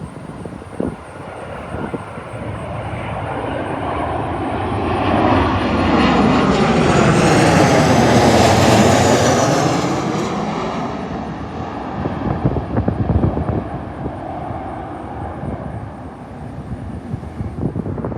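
Southwest Airlines Boeing 737 passing low overhead on approach to land. Its jet engine noise builds to a peak about halfway through, with sweeping tones at the loudest point, then fades. Wind buffets the microphone throughout, with gusts near the start and about two-thirds of the way through.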